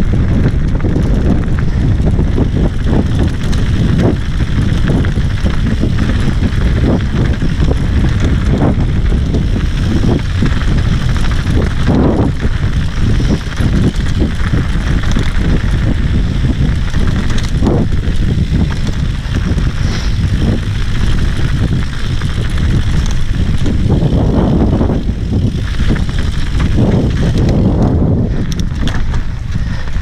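Santa Cruz Bronson mountain bike ridden fast down dirt singletrack, heard from a helmet-mounted camera: a constant rush of wind and tyre rumble, broken by frequent rattles and knocks as the bike hits bumps and rocks.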